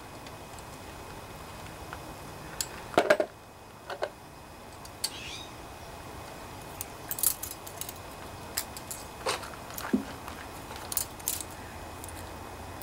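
Small metal hand tools clicking and clinking on a Honda GC160's overhead-valve rocker arm and adjuster lock nut while the intake valve clearance is set. Scattered sharp clicks and taps, loudest as a quick cluster about three seconds in.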